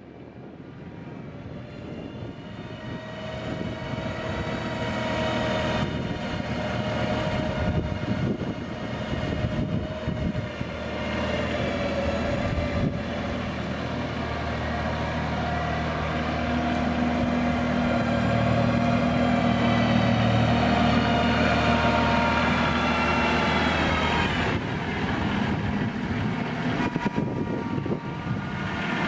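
Mahindra 2815 HST compact tractor's three-cylinder diesel engine running steadily as the tractor drives about. The sound swells up over the first few seconds, drops a little while the tractor is far off about halfway through, and grows again as it comes back close.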